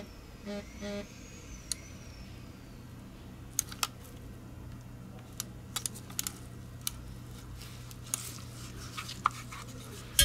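Scattered light plastic clicks and taps, about ten irregular ones, from tweezers and gloved fingers handling the small mouse feet (skates) as they are fitted, over a steady low hum.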